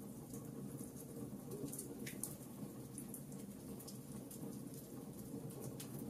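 Wood fire burning: many small, sharp crackles and snaps at irregular intervals over a steady low rush, with one slightly louder pop about two seconds in.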